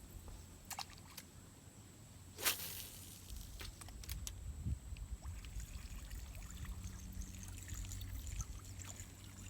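Water trickling and dribbling over a steady low hum, with scattered small clicks and one short, sharp splash about two and a half seconds in.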